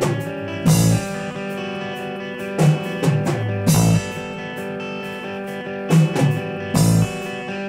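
Instrumental rock passage: electric guitar chords ringing over a drum kit, with a cymbal crash about every three seconds.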